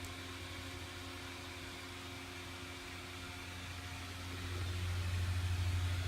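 Small electric blower fan of an airblown inflatable running with a steady low hum and air noise, growing louder about four and a half seconds in.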